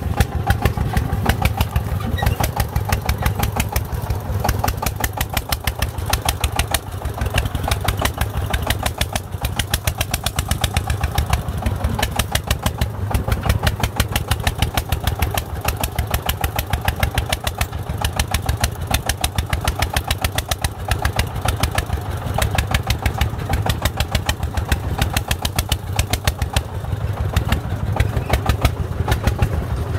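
Single-cylinder diesel engine of a công nông, a Vietnamese farm truck, chugging steadily at a fast, even beat as it hauls a load of broken bricks. It is heard close behind the truck.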